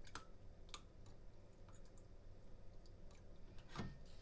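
Faint scattered clicks and light ticks of a plastic gallon milk jug being handled while milk is poured into a glass measuring cup.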